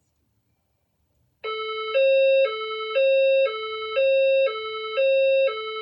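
A System Sensor SPSR fire alarm speaker strobe sounding a hi-lo alert tone, two pitches alternating every half second, starting about a second and a half in. It is the signal tone of a voice evacuation system: it comes before the spoken 'Attention, please' message saying that a report of an event in the building is being verified.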